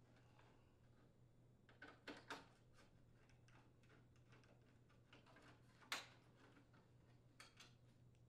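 Near silence broken by a few faint small clicks of a screwdriver and screws: three close together about two seconds in, a sharper one near the middle, and two faint ones near the end, as the screws holding the oven door's side glass bracket are taken out.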